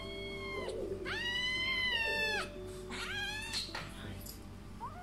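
Calico kitten meowing four times, the second meow long and drawn out, the last one just starting near the end, over soft background music.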